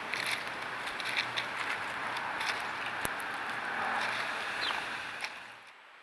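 Small sharp clicks and ticks of birds pecking at mixed seed in a wooden tray feeder, over a steady rushing background noise, with one brief high falling chirp about four and a half seconds in. Near the end it drops suddenly to a faint even hiss.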